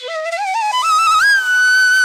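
Background music: a single melody line that starts abruptly, climbs in steps and settles on a long held note.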